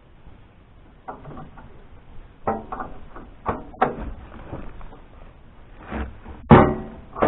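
Metal clanks and knocks from hand work on a sawmill's parts: a string of separate sharp hits, some with a short ring, the loudest about six and a half seconds in.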